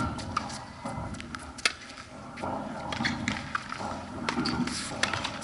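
Tennis ball struck by rackets and bouncing on a hard court during a rally: several sharp pops a second or two apart, the loudest a little over a second and a half in.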